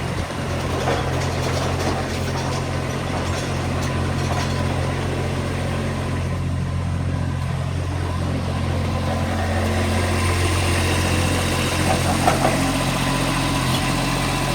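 An engine idling steadily with a low, even drone, and a couple of light knocks near the end.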